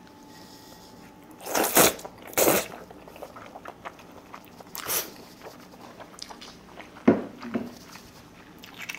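Person slurping wide, slippery rice paper noodles, several short loud slurps with small mouth sounds of chewing between.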